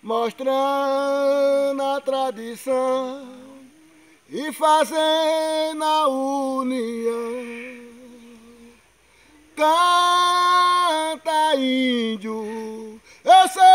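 A man singing a traditional Kariri-Xocó chant solo and unaccompanied, in long held phrases that step down in pitch toward their ends, with short breaths between them. Three phrases, and a fourth begins near the end.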